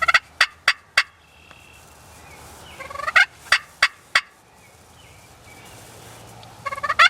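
Wild turkey tom gobbling three times, about three seconds apart, each gobble a rising call that breaks into a quick rattling run of notes.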